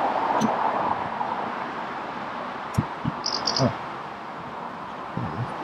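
A passing vehicle's noise fades out. About three seconds in come a few dull knocks as the rear wiper arm is worked loose from its splined shaft, along with a brief high chirping.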